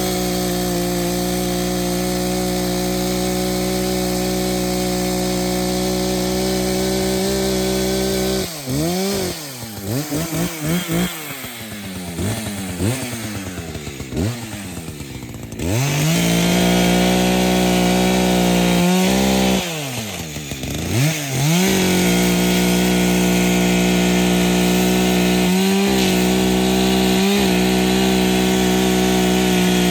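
Echo CS-590 Timber Wolf 59.8cc two-stroke chainsaw running at full throttle, cutting wood. About eight seconds in the throttle is let off and blipped several times, the pitch falling and rising, before it is held wide open again. There is another brief dip around twenty seconds in.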